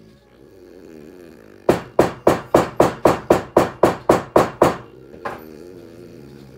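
A sleeping French bulldog's snoring: a run of about a dozen short, loud snorts, about four a second, then one more after a pause.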